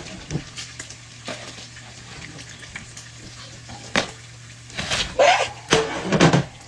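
Food sizzling faintly in a frying pan, with sharp clinks and clatter of dishes and utensils about four seconds in and several more near the end.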